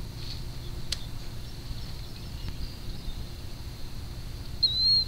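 A bird gives a short, wavering chirp near the end, over a low, steady rumble of outdoor background noise. A faint click comes about a second in.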